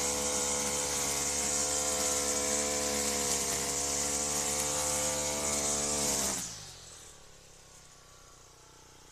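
Honda four-stroke brushcutter running at full throttle, its cutting head whirring through grass. About six seconds in, the engine winds down and the sound drops away to a faint remainder.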